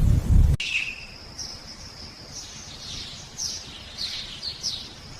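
A loud low rumble that cuts off abruptly about half a second in, followed by birds chirping: a string of short high chirps over a steady high tone.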